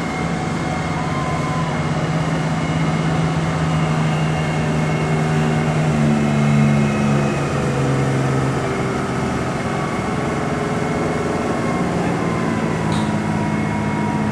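Steady low mechanical hum of a cruise ship's machinery, with a thin high whine held above it; the low tones shift in pitch a few times.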